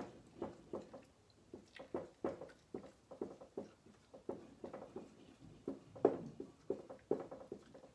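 Dry-erase marker tapping and dabbing on a whiteboard as electron dots are drawn: a quick, irregular run of light taps, about three to four a second.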